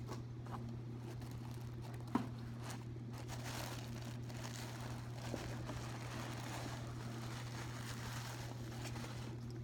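Paper packaging rustling and crinkling as it is handled, with a single short knock about two seconds in. A steady low hum runs underneath.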